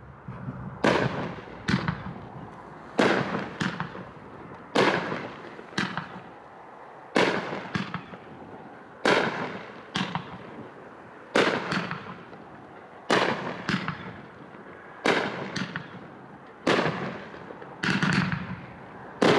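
Aqua Thunder, a 16-shot 500-gram consumer firework cake, firing shot after shot: a loud bang about every two seconds, with a softer pop between each.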